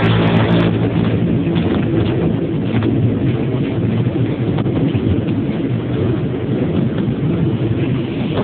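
Amusement ride in motion: a loud, steady low mechanical rumble with wind buffeting the phone's microphone.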